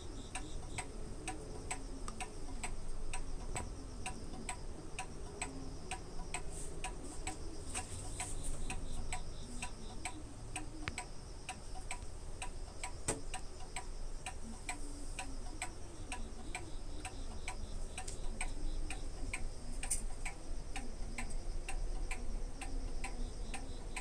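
Steady, even ticking, about two ticks a second, over a faint steady high-pitched hum.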